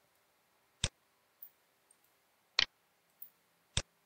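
Computer mouse button clicking three times, the middle one a quick double-click.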